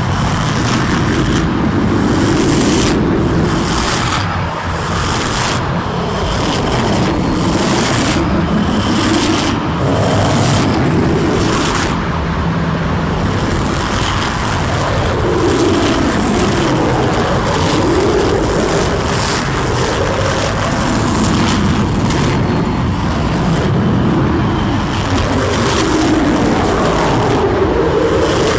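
Dense experimental noise music: a thick wall of rumbling, scraping noise with pitched tones sliding down and back up, and crackling hiss that pulses roughly every second and a half.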